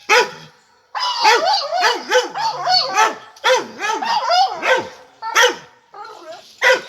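Pit bull barking: one sharp bark, then a rapid run of barks close together for about four seconds, then two more single barks near the end.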